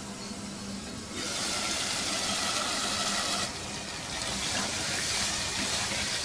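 Thick chicken curry sizzling and bubbling in a steel pot as it is stirred with a spatula, the chicken simmered until tender. A loud, steady hiss starts about a second in.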